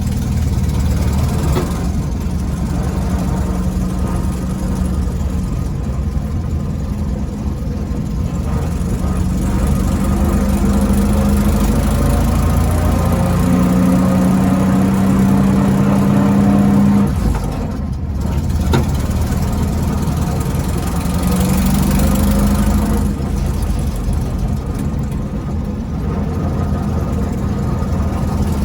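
A 1968 VW Baja Bug's air-cooled flat-four engine running in neutral with the clutch engaged, with a low-toned hum from the transmission that the owner puts down to a damaged bearing. The hum swells and fades, is strongest just before it cuts off abruptly about 17 seconds in, and returns briefly a few seconds later.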